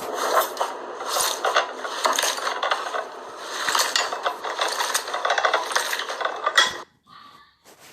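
Slime being squeezed and worked by hand, giving a dense run of fast crackles and clicks that stops abruptly about seven seconds in.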